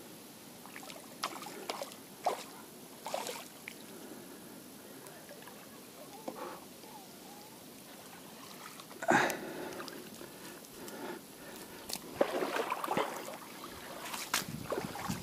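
Shallow river water sloshing and splashing as a hooked young bream is brought in and scooped up in a landing net, with scattered knocks and handling noises. The loudest splash comes about nine seconds in, followed by a denser spell of splashing and rustling about twelve seconds in.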